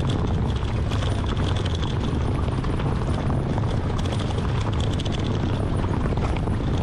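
Camouflaged Ford Bronco prototype rolling slowly over a stony, sandy surface. Its tyres crunch and click over loose stones on top of a steady low rumble from the vehicle.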